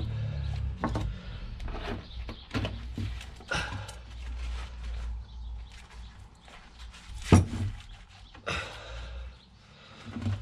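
Irregular knocks, clicks and short scrapes of a car driveshaft's CV joint and rubber boot being worked by gloved hands in a bench vise, with one sharp, louder metal knock about seven seconds in.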